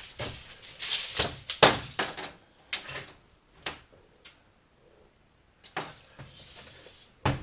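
Irregular knocks, taps and clicks of wood and tools being handled, packed close in the first few seconds, then sparser, with one sharp click near the end.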